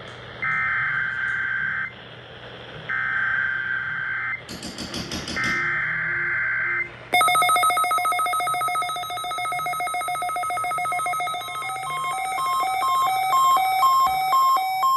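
Three buzzy bursts of EAS/SAME digital header data, the data tones that begin a NOAA Weather Radio Required Monthly Test alert, each about a second and a half long with roughly a second between them, and a brief noisy burst before the third. About seven seconds in, weather alert radio receivers start sounding their electronic alert, several tones beeping in a fast repeating pattern.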